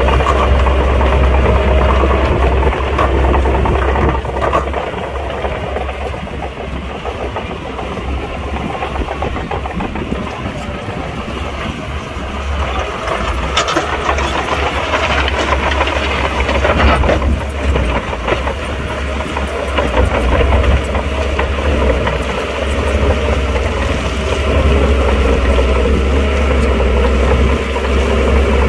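Shantui crawler bulldozer's diesel engine running steadily under load as the dozer pushes crushed rock with its blade, with a few short clatters around the middle.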